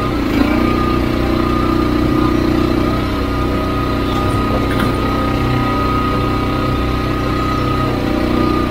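Wolfe Ridge Pro 28C hydraulic log splitter's gas engine running steadily while firewood is split, its tone heavier in the first few seconds and again near the end as the splitting ram works under load.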